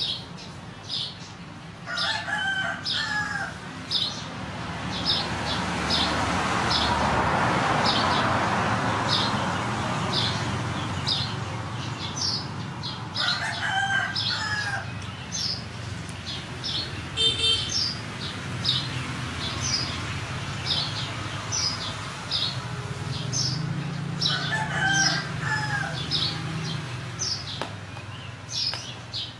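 A rooster crowing three times, about ten seconds apart, over short high chirps repeating roughly once a second. A rushing noise swells and fades in the first third.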